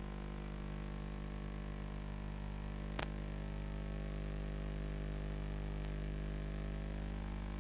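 Steady electrical hum or buzz with evenly spaced overtones that do not change in pitch, broken by a single sharp click about three seconds in.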